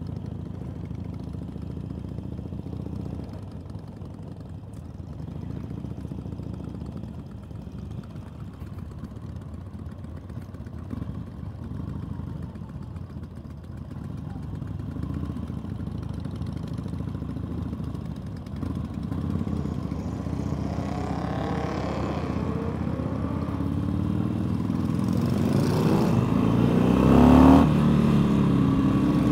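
Harley-Davidson V-twin motorcycle engines running at low speed on a gravel path, a steady low rumble. In the last third it grows louder, with the revs rising twice as the bikes accelerate.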